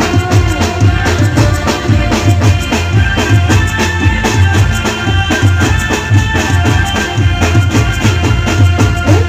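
Live garba band music through a PA system: an instrumental passage with a fast, steady rhythm on dhol and drum kit under a keyboard melody.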